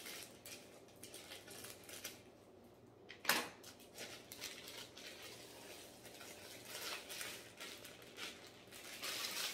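Plastic bag of white cake mix crinkling and rustling as it is opened and emptied into a glass mixing bowl, with many small clicks and one louder sharp click about three seconds in.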